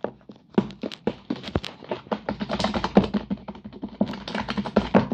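Slime being squished and worked by hand for ASMR, giving a rapid, irregular run of sticky clicks and pops.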